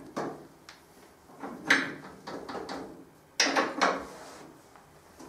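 Hand tools knocking and scraping against a motorcycle's rear wheel axle and chain adjuster as the wheel is refitted: a handful of separate short clunks, the loudest a quick pair about three and a half seconds in.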